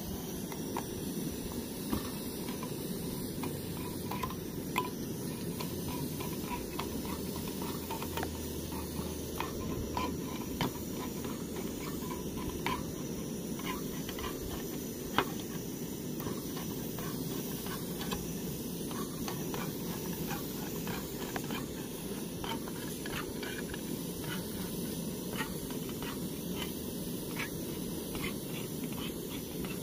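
Small tin can being opened with a multitool's can-opener blade, prying its way around the rim in a long run of small irregular metal clicks, over a steady low hiss.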